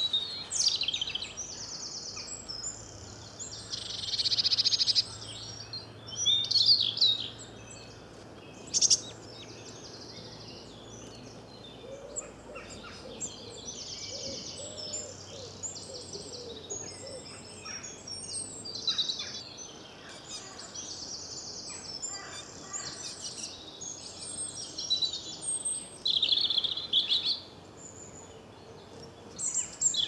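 Wild songbirds chirping and singing: a steady run of short, high calls and trills, with louder bursts about four and seven seconds in and again near the end.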